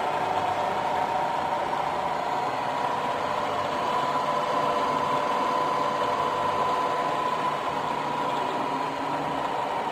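Bridgeport EZ Trak vertical milling machine running, a steady machine hum with a whine that rises a little in pitch and then eases back.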